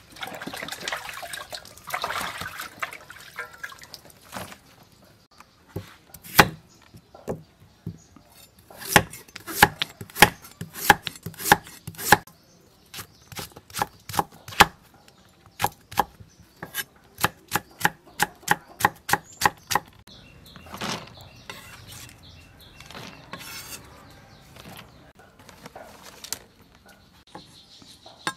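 A kitchen knife chopping carrot and long beans on a wooden cutting board: sharp single chops, a couple each second, through the middle of the stretch, with softer cutting sounds near the end. At the start, wet lettuce rustles in a plastic colander.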